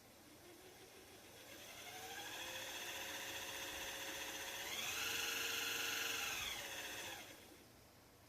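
TZ20002MR mini lathe's DC motor run up on its speed controller: a whine that rises in pitch over the first couple of seconds and holds, steps up to a higher speed about five seconds in, then winds down and stops near the end.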